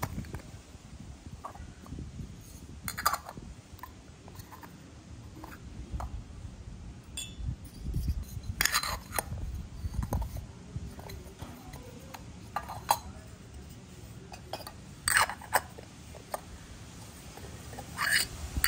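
Miniature metal toy plates and pots clinking and tapping against each other as they are handled, a few light metallic clinks at irregular intervals over soft handling noise.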